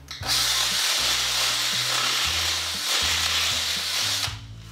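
Drill running steadily as its bit reams weld slag out of a freshly tack-welded steel pipe and bearing cup, a harsh hissing grind that starts just after the opening and stops about four seconds in. Soft background music runs underneath.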